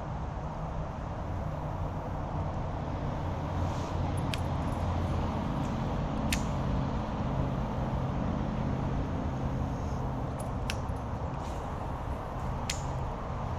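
A steady low motor hum with a few sharp clicks over it.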